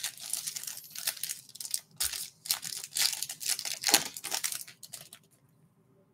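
Shiny plastic trading-card pack wrapper torn open and crinkled by hand, a dense crackle of sharp rips and rustles that stops about five seconds in.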